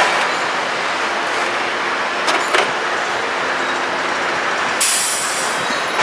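Car assembly plant floor noise: a steady din of machinery with two sharp metallic clanks about two and a half seconds in, and a loud hiss of air near the end.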